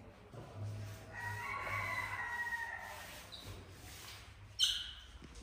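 A rooster crowing once, one long crow of about two seconds. Near the end comes a brief, sharp high-pitched squeak.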